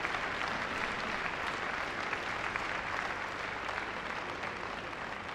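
Audience applauding steadily, a dense even clatter of many hands that eases slightly toward the end.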